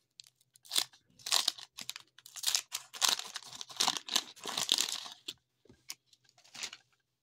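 Waxed paper wrapper of a 1990 Topps baseball card pack torn open and crinkled by hand: a dense run of crackling tears for about four seconds, then a few fainter crinkles.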